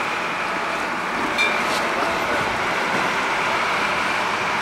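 Open-air guest tram in motion: steady running noise, with a brief clatter about a second and a half in.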